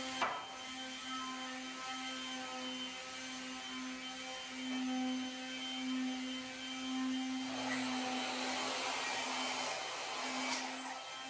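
An electric motor running steadily: a constant hum with a hiss over it. The hiss grows louder about eight seconds in and eases off a couple of seconds later.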